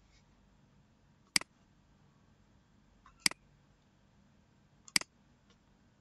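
Three sharp computer mouse-button clicks, spaced a little under two seconds apart, as line points are picked in a CAD drawing program.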